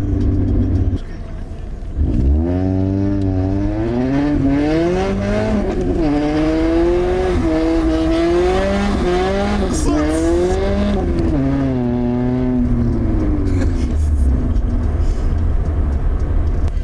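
Lada Priora running with its muffler removed, so the exhaust is open and very loud. About two seconds in it accelerates hard: the pitch climbs, drops back and climbs again several times as it runs up through the gears, then settles to a steady cruise near the end.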